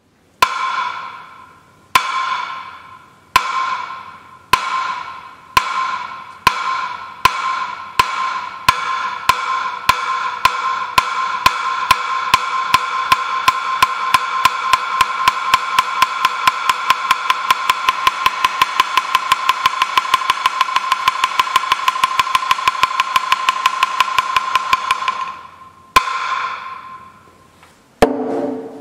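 Monastery wooden signal board struck with a mallet. Single ringing strikes come slowly at first, then speed up steadily into a fast, even roll that stops abruptly, followed by one more strike. This is the guest hall's signal calling the monks to the incense (meditation) period. Near the end, a lower, hollower knock starts on the fish-shaped wooden board (bang).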